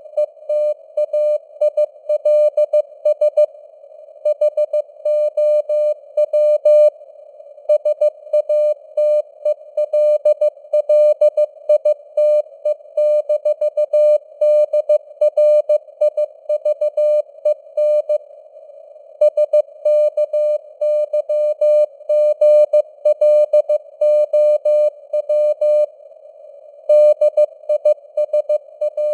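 Morse code (CW) sent at 15 words per minute: a mid-pitched beep keyed on and off in dots and dashes, over a narrow band of simulated radio hiss. The signal strength varies the way a fading shortwave signal does (QSB).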